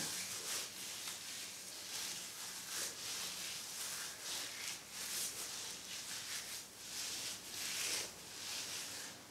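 Hands smoothing thick deep conditioner through wet coily hair: faint, soft rubbing and squishing strokes repeated irregularly, about one every half second to second.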